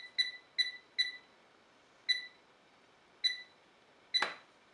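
A Philips Airfryer's touch control panel beeps once for each press of the timer button, about seven short high beeps at uneven spacing, as the cooking time is stepped up. About four seconds in, a short, louder knock comes with one of the beeps.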